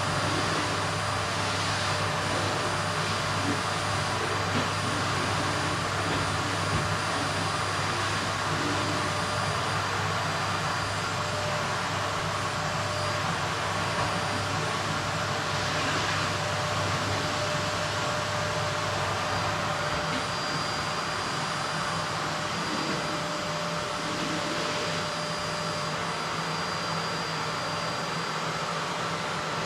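Vacuum cleaner running steadily on a wooden floor: a constant rushing hiss with a steady whine over it. The low hum drops a little about two-thirds of the way through.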